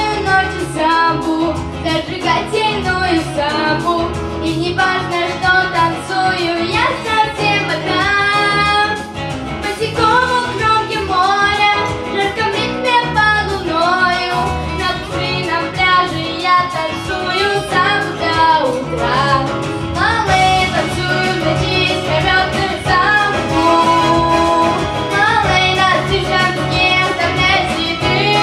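Violin playing a samba melody over a backing accompaniment.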